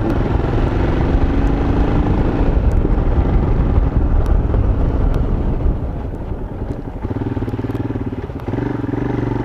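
Motorcycle engine running while riding, with wind rushing over the bike-mounted microphone. About seven seconds in, the rushing eases and the engine settles to a lower, evenly pulsing note.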